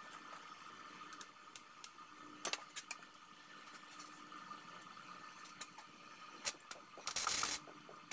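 A few light clicks over a faint steady hum, then a short burst of stick-welding hiss and crackle about seven seconds in, with a second burst starting right at the end: tack welds on a steel bracket.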